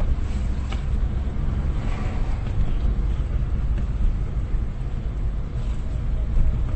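Car driving slowly, heard from inside the cabin: a steady low rumble of engine and tyres on the road, with a few faint clicks.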